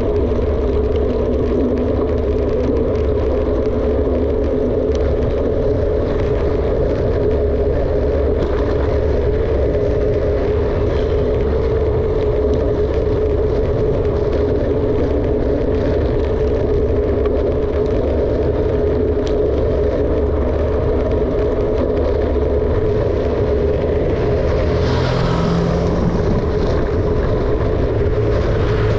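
Steady rumbling noise of a mountain bike rolling downhill: wind on the microphone and tyre noise, with a constant hum underneath. Near the end there is a brief swell of hissing noise.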